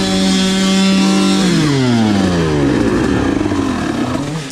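Dirt bike engine held at steady high revs, then the revs falling away smoothly over about two seconds as the bike comes off the throttle and slows to a stop.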